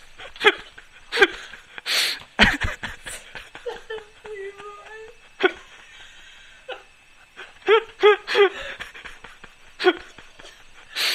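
Wordless vocal sounds from a person: short laugh-like bursts and breaths, with one held, slightly wavering note lasting over a second about four seconds in.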